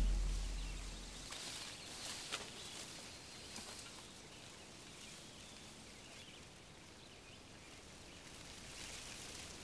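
Faint outdoor forest ambience, an even low hiss with a few soft clicks, after a deep drum note from the music fades away in the first second or so.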